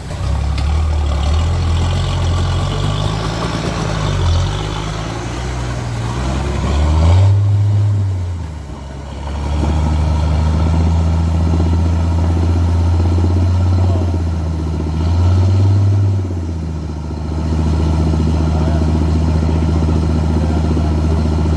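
Off-road 4x4 vehicle engine running steadily, revving up briefly twice, about a third of the way in and again about three quarters of the way through.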